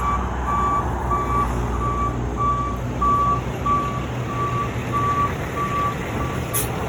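Tow truck's reverse alarm beeping steadily, about one and a half beeps a second on a single high tone, over the low rumble of the truck's engine as it backs up.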